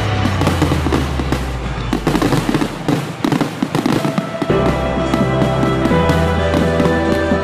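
A fireworks finale barrage: rapid, overlapping bangs and crackling from many shells bursting at once, densest in the first four seconds or so. Background music plays under it.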